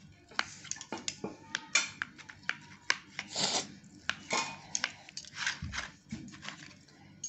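Kitchen knife cutting a block of paneer into small pieces on a plastic tray: a run of sharp taps as the blade meets the tray, mixed with short scraping swishes.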